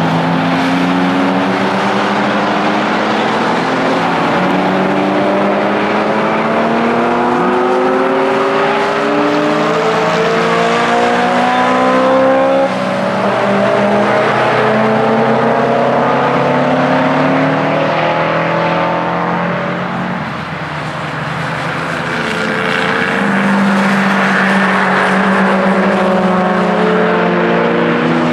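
Several cars lapping a race circuit, their engines running hard: overlapping engine notes keep rising in pitch as the cars accelerate, with a short lull about twenty seconds in.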